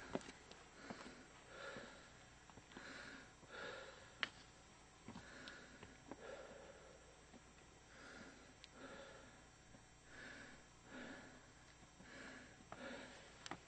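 Heavy breathing close to the microphone, a steady in-and-out rhythm of about one breath every second or so, from someone out of breath after climbing steep stone steps. A few faint clicks come through as well.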